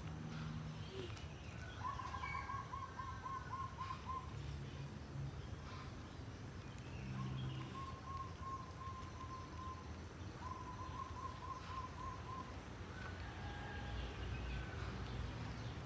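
A bird calls in three runs of rapid, even, same-pitched notes, about four or five a second, over a steady outdoor background.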